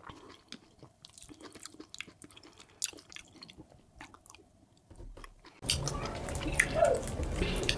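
Close-up eating sounds of a person chewing fufu: soft, wet mouth clicks and smacks. A little over halfway through, the sound jumps suddenly to a much louder, fuller stretch of chewing.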